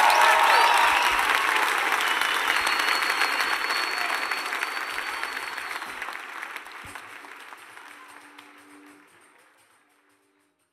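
Large concert audience applauding at the end of a song, the clapping fading out over the last few seconds until it is gone.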